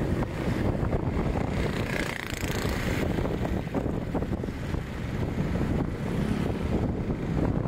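Low, steady rumble of city street traffic, cars and motorcycles, with wind buffeting the microphone.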